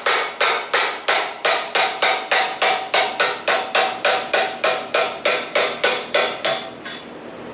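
Steady hammer blows on a long steel drift punch, about three a second, driving a tight steel shaft out of a freshly welded pivot mount; sharp metal-on-metal strikes with a short ring. The blows stop near the end.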